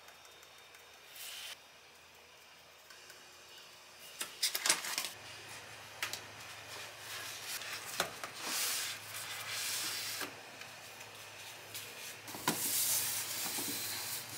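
White paperboard cake boxes being folded and handled: crisp crackles, scrapes and sharp clicks of the cardboard, with the loudest cluster of clicks about four to five seconds in.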